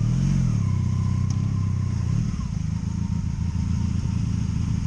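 Honda VF750C Magna's V4 engine running at low revs, with a short blip of throttle right at the start and a smaller one about two seconds in.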